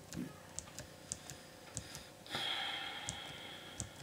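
Computer mouse clicking through presentation slides: short, light ticks at uneven intervals, a few a second. A soft rushing noise, like a breath, rises a little past halfway and lasts about a second and a half.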